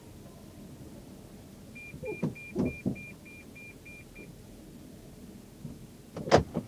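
Lexus RX450h's electronic beeper sounding about nine short, even beeps, roughly four a second, with a few dull knocks during them and one sharp clunk near the end.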